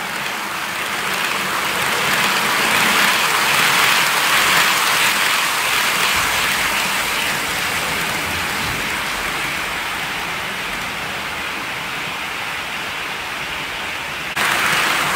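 OO gauge model train with tank wagons running past on the track: a steady hissing rattle of wheels on the rails that swells as the train goes by, eases off, then jumps up again shortly before the end.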